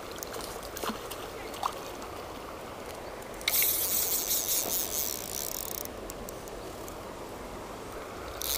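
River water running steadily, with a fly reel's ratchet buzzing for about two and a half seconds midway as a hooked rainbow trout is played.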